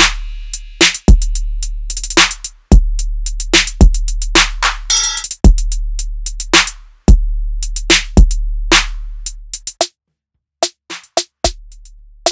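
Background music: an electronic drum-machine beat with sharp kick and snare hits, hi-hats and long deep bass notes. Near ten seconds in the bass drops out, leaving only a few sparse hits for a moment.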